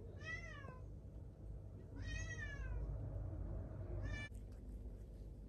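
A cat meowing three times: two drawn-out meows that rise and then fall in pitch, and a shorter, flatter one about four seconds in.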